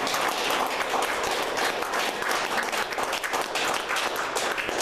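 A small group of people applauding: dense, steady hand clapping.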